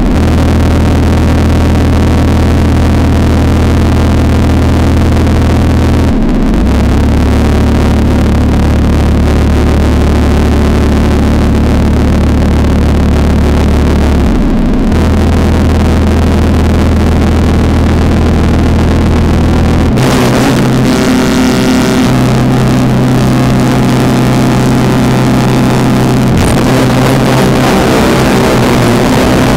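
Loud electronic drone music: sustained deep bass tones that break off briefly twice, then give way to a rougher, denser texture about two-thirds of the way through.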